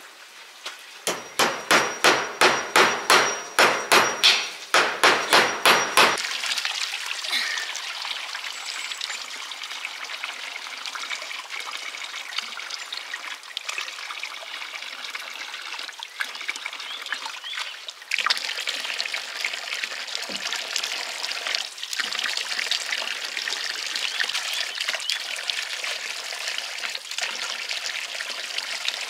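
A fast run of sharp knocks, about four a second, with a short break, stopping about six seconds in; then a steady hiss.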